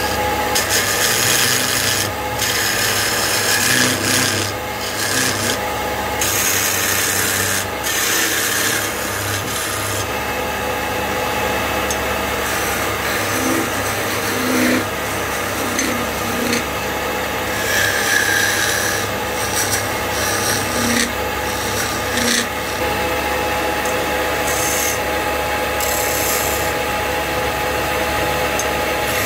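Wood lathe running with a steady hum while a hand-held turning chisel cuts into a spinning wooden table leg. The cutting is a dry scraping hiss that swells and fades in bouts as the tool is worked along the wood.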